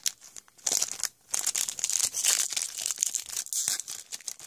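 Foil wrapper of a 2015 Score NFL trading card pack being crinkled and torn open by hand: a crackly rustle of many small snaps, with a brief pause about a second in.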